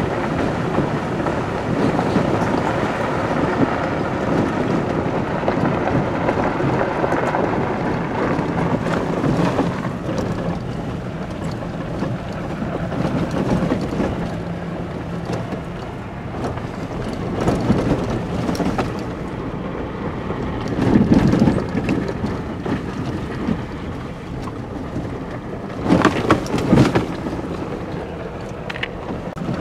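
Engine and road noise heard from inside a four-wheel-drive vehicle driving slowly up a rough gravel mountain road: a steady rumble with tyres crunching and the body rattling, and a few louder jolts from bumps, the strongest near the end.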